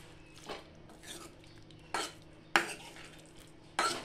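Metal spatula stirring thick potato and capsicum curry in a kadhai, scraping and knocking against the pan in about five separate strokes, the loudest near the end.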